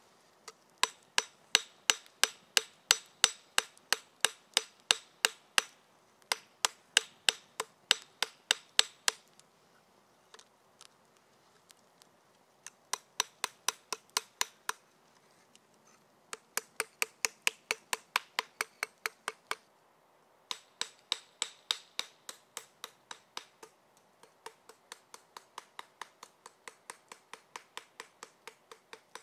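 Hammer striking steel, each blow ringing, in runs of about three blows a second with short pauses; the blows in the last third are lighter.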